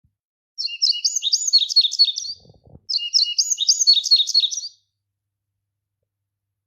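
A crested songbird singing two clear phrases of quick, repeated whistled notes, each phrase lasting under two seconds, with a short pause between them.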